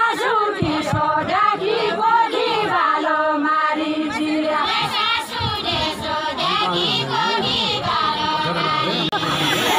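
A group of women singing a Nepali Deuda folk song together, many voices at once in a loud, chant-like chorus.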